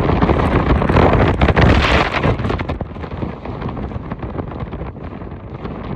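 Hurricane-force wind blasting the microphone, with rain, in a loud roar of gusts. The gust is strongest in the first two and a half seconds, then eases somewhat.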